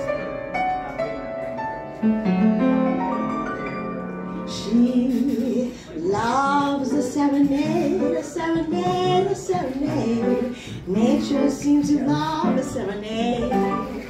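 Piano playing alone, then a woman's voice comes in singing over the piano accompaniment about six seconds in.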